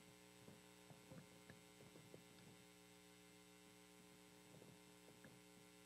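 Near silence: a faint, steady electrical mains hum, with a few faint soft clicks.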